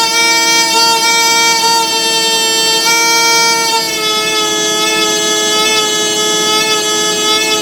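Boiler control valve giving off a loud, steady whistling howl, one pitch with many overtones, stepping slightly lower about four seconds in. This is the abnormal valve noise under investigation.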